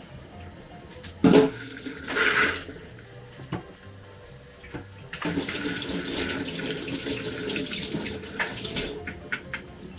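Kitchen tap running into a stainless-steel sink while hands are rinsed under the stream. It starts about five seconds in and stops near the end. Earlier there is a single loud clunk about a second in, followed by a short rush of noise.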